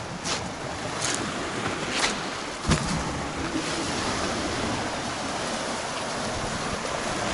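Small sea waves washing onto a pebble beach, swelling from about three seconds in. Four footsteps on the pebbles sound in the first three seconds.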